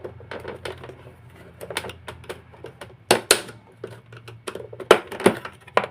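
Plastic parts of a vacuum cleaner's housing clicking and knocking as they are handled and pressed into place, in a string of irregular sharp clicks with a few louder knocks.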